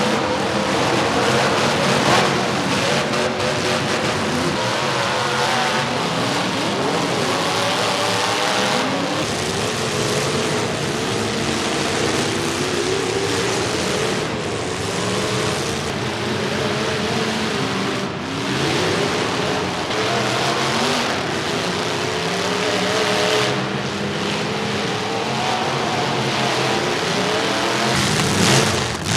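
Demolition derby car engines revving hard, several at once, their pitches rising and falling over one another with a constant noisy din.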